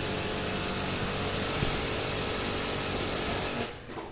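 Electric jet cleaner (high-pressure washer) running and spraying water: a steady hiss over a motor hum that cuts off near the end.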